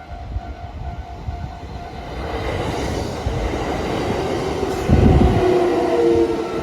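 A Kintetsu Osaka Line train running through a level crossing: the crossing bell's repeating tone is drowned out about two seconds in as the train's rumble builds. A heavy low thud comes about five seconds in as the train passes close, followed by steady tones from the train.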